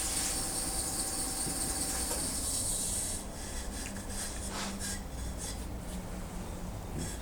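Wood lathe with a turning tool cutting a spinning wooden bowl blank: a steady hissing shave that, about three seconds in, breaks into quieter, intermittent scraping strokes.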